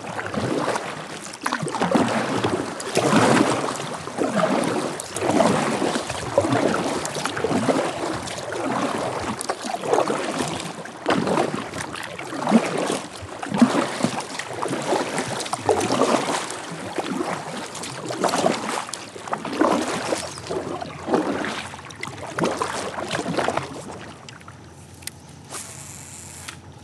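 Kayak paddle strokes splashing in river water, a steady rhythm of about one stroke a second, stopping a few seconds before the end.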